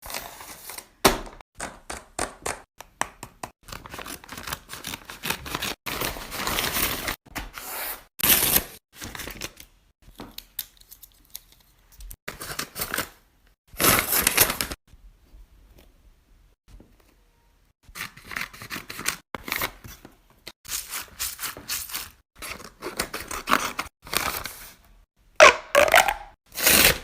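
Plastic fidget toys being handled: irregular crinkling, tearing and clicking noises in short bursts, with a pause of about three seconds past the middle.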